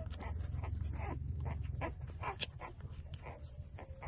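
A litter of young puppies suckling at their mother's teats: many quick, irregular wet smacks and slurps, with a little whimpering, over a low steady rumble that eases about halfway through.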